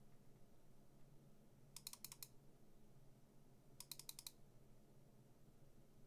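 Computer mouse clicking faintly: two quick runs of about five sharp clicks each, about two seconds apart.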